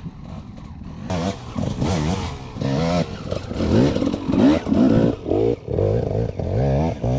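Dirt bike engine revving, its pitch rising and falling again and again as the throttle is worked, louder from about a second in.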